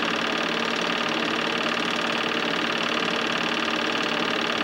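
Film projector running steadily, its mechanism clattering at a fast, even rate.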